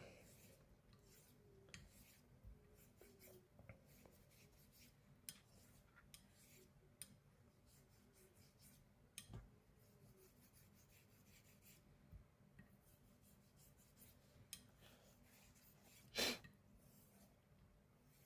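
Faint honing strokes of a Sheffield straight razor on a DMT 8K diamond plate: light scraping and small ticks. The pressure is on the heel, setting the bevel there. One louder knock about 16 seconds in.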